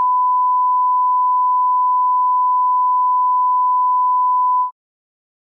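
Steady 1 kHz test tone, the reference tone played with television colour bars, cutting off abruptly near the end.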